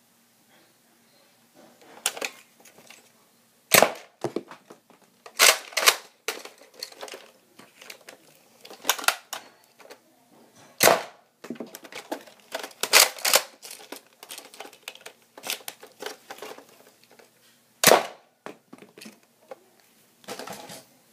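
Nerf blaster being handled and fired: three sharp pops about seven seconds apart, with bursts of clicking and rattling between them.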